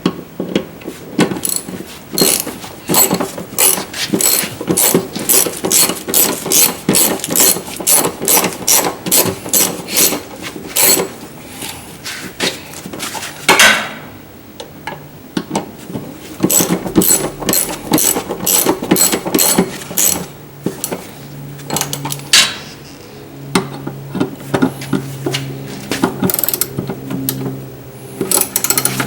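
Hand ratchet wrench clicking in quick, even runs as it tightens the driveshaft carrier bearing's mounting bolts. It pauses near the middle for a short louder scrape, and a low steady hum sits under the last part.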